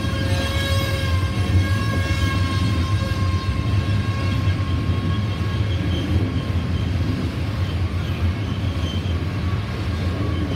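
A loaded coal train rumbling steadily along the track, with a steady high tone over the rumble that fades away about halfway through.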